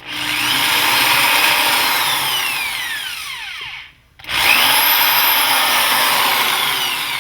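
Power drill with a 1/8-inch bit boring two small pilot holes into a wooden cabinet frame. Two runs of the motor, its pitch falling through each run, with a brief stop about four seconds in between the holes.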